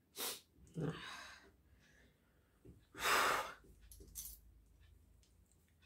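A woman crying softly, with a few sniffs and shaky breaths; the loudest comes about three seconds in.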